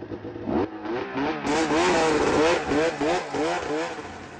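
Arctic Cat snowmobile engine revving as the sled pulls away, its pitch rising and falling several times in quick succession.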